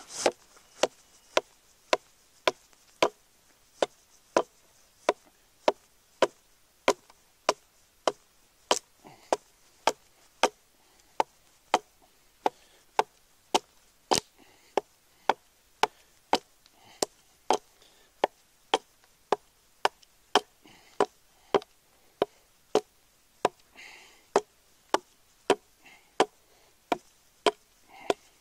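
Hatchet chopping along the flat face of a split log half, hewing it roughly smooth: sharp strokes in a steady rhythm of about two a second.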